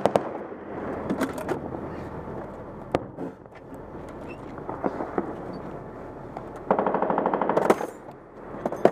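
M2 .50 caliber heavy machine gun firing one rapid burst of about a second near the end, the loudest sound here. Scattered single gunshots come before it.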